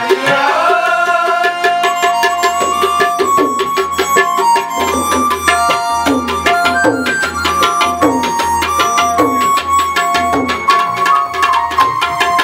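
Tabla playing a fast, busy rhythm, with deep strokes on the bass drum that bend in pitch. A melody of held notes plays above it, an instrumental interlude between sung verses.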